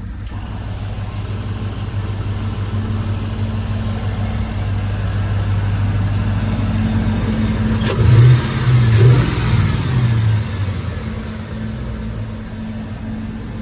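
Car engine and exhaust running while driving, a steady low note that rises into a brief rev about eight seconds in, then eases back over about two seconds.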